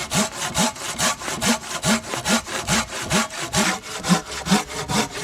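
Hand saw cutting through a wooden log for firewood, in quick, even back-and-forth strokes, about two to three a second.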